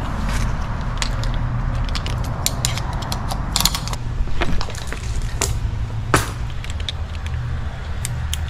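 A steady low mechanical hum with scattered sharp clicks and knocks.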